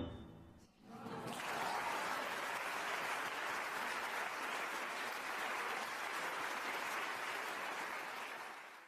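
A final chord on a Steinway grand piano dies away, then an audience applauds steadily from about a second in, fading out at the very end.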